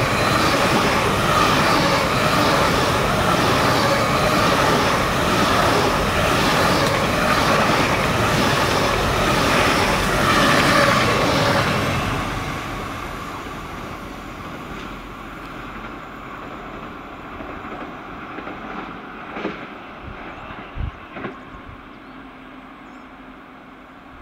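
ICE high-speed train passing close at speed: a loud rushing of wheels and air for about twelve seconds, then fading away as it recedes.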